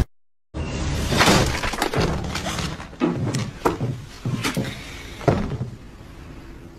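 After a half-second gap, a loud crash and clatter, then several sharp knocks and thuds that die away.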